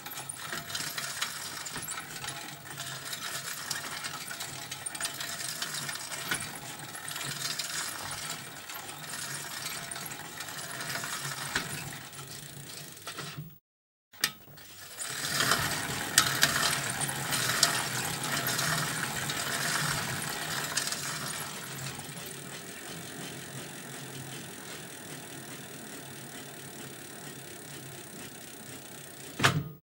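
Bicycle chain and freewheel ratchet ticking rapidly, heard close up as the bike rides. The sound cuts out briefly about fourteen seconds in, then resumes louder and gradually settles.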